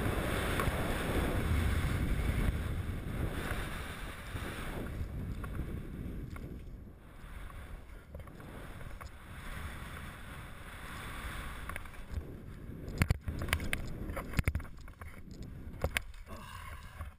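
Wind rushing over the camera microphone and skis hissing over snow during a downhill ski run, louder for the first five seconds and then easing off. Several sharp knocks and clicks come in the last few seconds.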